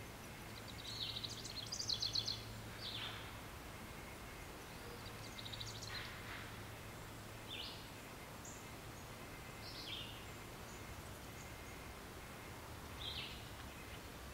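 Birdsong ambience: small birds chirping, with short high calls every second or two and a brief burst of trilling about a second in, over a faint steady low hum.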